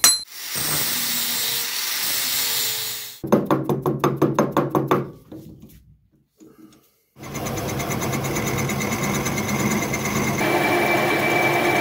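A steady hiss for about three seconds, then a quick run of knocks. After a moment of near silence, a metal lathe starts and runs steadily, spinning a cast aluminium cylinder barrel, and a thin steady whistle joins near the end.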